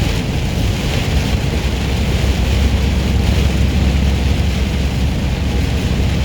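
Semi truck driving at highway speed in heavy rain, heard from inside the cab: a steady low engine and road drone under an even hiss of rain and spray.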